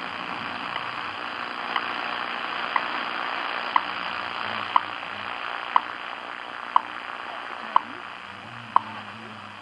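WWV time signal received on a shortwave radio at 10 MHz: steady shortwave static hiss with the station's short seconds tick once a second.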